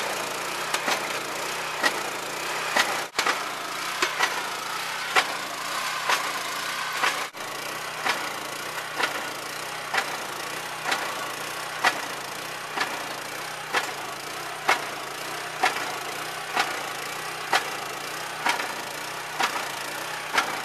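Cable tool water well drill rig running: a small Honda gasoline engine runs steadily while the rig knocks sharply about once a second, the regular stroke of the cable tool cycling.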